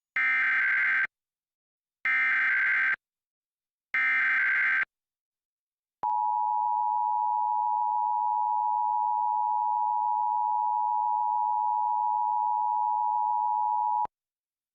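Emergency Alert System monthly test: three one-second bursts of SAME header data tones, a rapid digital warble, two seconds apart. These are followed about a second later by the EAS two-tone attention signal (853 and 960 Hz), held steady for about eight seconds before cutting off abruptly.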